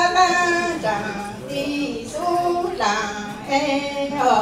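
A woman singing Hmong lug txaj, a traditional sung poem, in long held notes with pitch slides between phrases.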